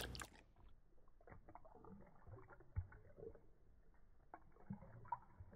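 Faint, slowed-down lapping of a small dog drinking water from a metal bowl: scattered soft splashes and dull knocks, two of them louder about three and five seconds in. The sound is muffled and dull, as from a slow-motion phone recording.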